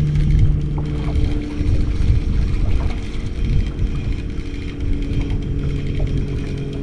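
Boat motor running steadily at low speed, its hum shifting slightly in pitch, over a low rumble of wind on the microphone.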